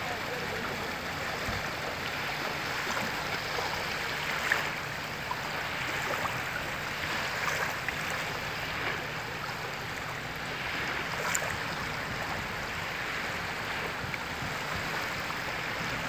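Small sea waves washing in and breaking on the shore, a steady hiss of surf with no gaps.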